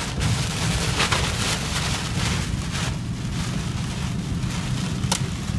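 High wind and heavy rain of a tornadic storm, with the wind buffeting the phone's microphone in a steady low rumble under the hiss of rain. Two brief sharp knocks come near the end.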